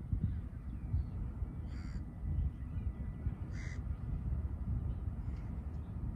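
A crow cawing twice, short single caws about two seconds and three and a half seconds in, over a continuous low rumble.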